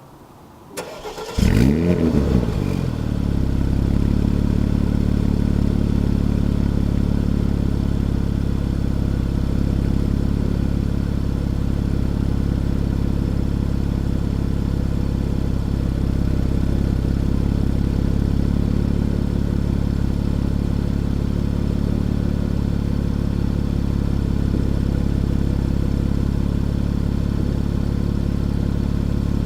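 2016 Porsche Cayenne with sport exhaust starting from cold. A short crank about a second in, then the engine catches with a loud flare of revs that drops back within a couple of seconds. It settles into a steady cold-start idle.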